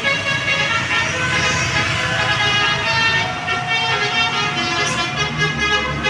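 Tour bus's multi-tone telolet air horn playing a melody of held notes that change every second or so, over the bus's engine running.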